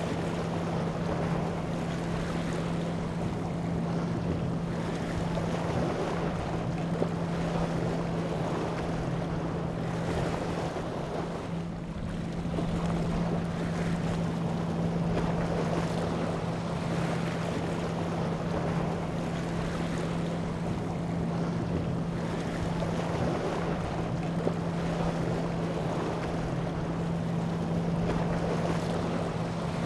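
Rigid inflatable boats with twin Mercury outboard engines running at speed through choppy water: a steady engine drone under the rushing of the wash, with wind on the microphone.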